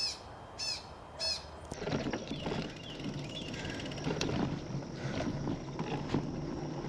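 A small songbird gives a short, sharp call, repeated about every two-thirds of a second. Under two seconds in it stops abruptly and gives way to the steady, rough noise of a bicycle being ridden along the trail, with faint bird chirps.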